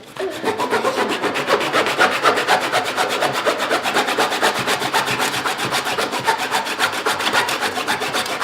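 A saw cutting back and forth through the hard inner core of a cricket ball, giving a fast, even rasping rhythm.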